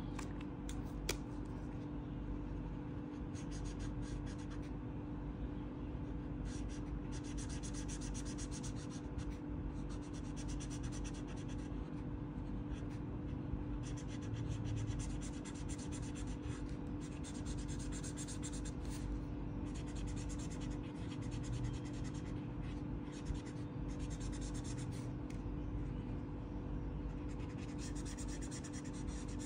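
Pink felt-tip marker scratching back and forth on paper in runs of quick strokes with short pauses between them, as it colours in a drawing. A steady low hum runs underneath.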